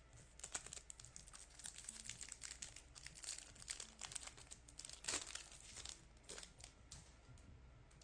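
Foil wrapper of a trading-card pack crinkling and tearing as it is opened by hand, a dense run of crackles that thins out near the end.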